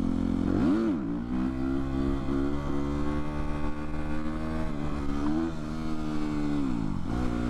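Motorcycle engine under throttle: a quick rev blip that rises and falls under a second in, then a held, slowly climbing pitch for several seconds while accelerating, falling away near the end as the throttle closes.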